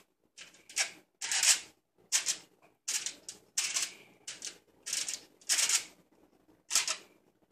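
Aluminium foil covering a pot crinkling as it is handled: about a dozen short, crisp crackles at uneven intervals, with quiet gaps between them.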